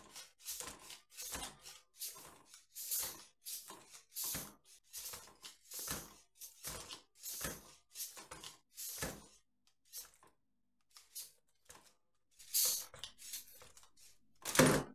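Modified Lego Technic Monster Raptor chassis bouncing on its pneumatic suspension, its plastic parts rattling and knocking about twice a second, then it tips over onto its side and lands with a loud clatter near the end.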